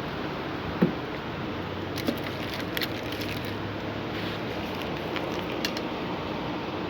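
Steady background noise with a few scattered light clicks and knocks, the sharpest a knock about a second in.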